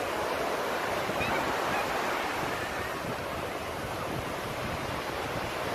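Sea waves washing on the beach, a steady surf wash, with wind buffeting the microphone.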